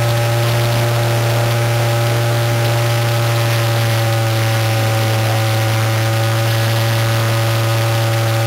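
RC model plane's motor and propeller running at a steady throttle, one steady drone whose pitch eases down slightly.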